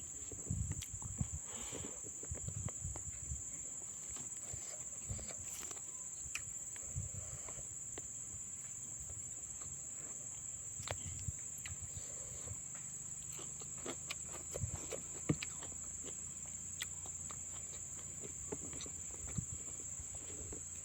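Mouth and handling noises of eating a fish head: scattered small clicks, smacks and soft low knocks. Under them runs a steady high-pitched drone of insects such as crickets.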